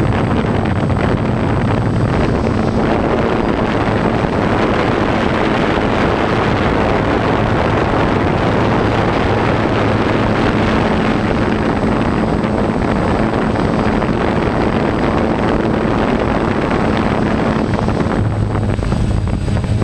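DJI Phantom quadcopter's motors and propellers, heard from the camera on board, a steady drone with a low hum and wind noise on the microphone. The hum grows stronger near the end.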